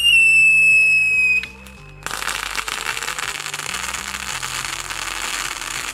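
Mad Dog Howling Blaster firework fountain whistling, a loud howl that falls slowly in pitch and stops about a second and a half in. Half a second later it breaks into dense crackling, its crackling finale. Background music plays underneath.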